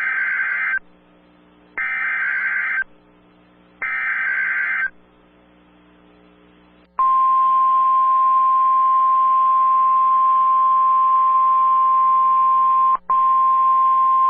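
Emergency Alert System header: three shrill data bursts of about a second each, roughly two seconds apart, that encode the coming tornado warning. After a short pause, a loud, steady single-pitch alert tone follows: the National Weather Service attention signal that opens the warning. It starts about seven seconds in and cuts out for an instant near the end.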